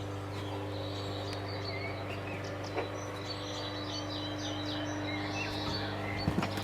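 Birds chirping over a steady low hum, with a couple of faint clicks.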